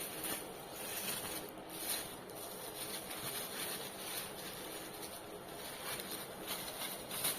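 Food delivery packaging being handled: scattered light rustles and taps over a steady hiss.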